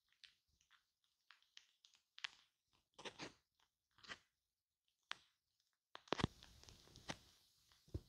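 Shaving cream foam on a microphone, crackling and squishing quietly in short irregular pops. From about six seconds in the crackle thickens into a continuous hiss, with two sharper pops.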